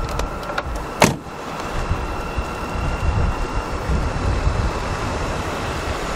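The driver's door of a 2002 BMW 520i E39 shut once with a solid slam about a second in, over a steady low outdoor rumble and a faint steady high whine.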